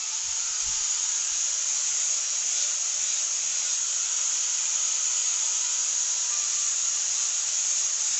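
Power tool grinding the steel of an old grass-cutter blade, a steady high hiss without a break.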